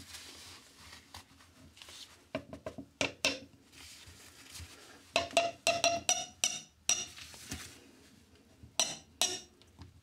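Adjustable spanner and water-pump pliers clinking against a brass isolation valve and flexi tap tail adapter while the adapter is tightened into the valve: scattered sharp metallic clicks and clanks, some ringing briefly, most thickly from about five to seven seconds in.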